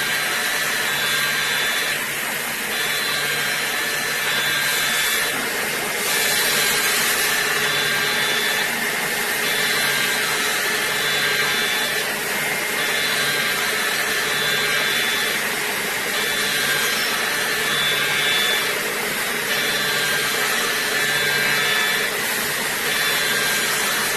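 DMG MORI vertical machining centre milling a small metal part: a steady hiss of spindle and cutting, with a high cutting tone and a low hum that come and go together about every two seconds as the cutter makes repeated passes.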